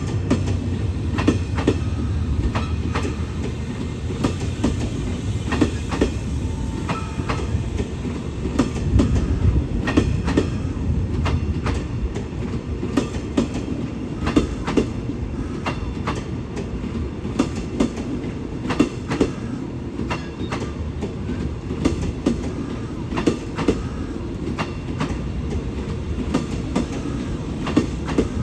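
Express passenger train running past on steel rails: a steady low rumble with the wheels clicking and clattering over rail joints and points.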